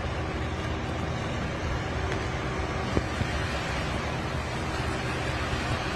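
Steady rushing noise, heaviest in the low range, with one sharp click about three seconds in.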